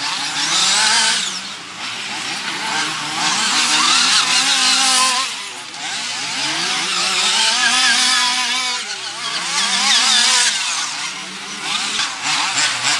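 Several RC nitro off-road buggies racing, their small glow-fuel two-stroke engines running at high revs. The pitch rises and falls as they accelerate and brake through the corners. The sound swells louder each time cars pass close, about four times.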